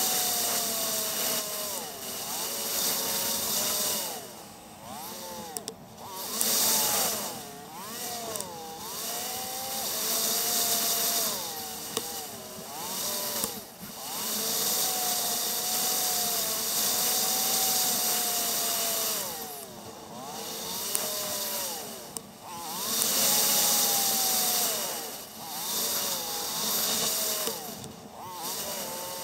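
Motorcycle engine running under way, its pitch rising and falling again and again as the rider opens and closes the throttle through the bends. A hiss of wind rush swells and fades over it.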